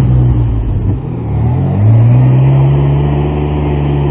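Off-road 4x4's engine revving hard as it tries to pull out of deep mud where it is stuck. The revs dip about a second in, climb back up and then hold high.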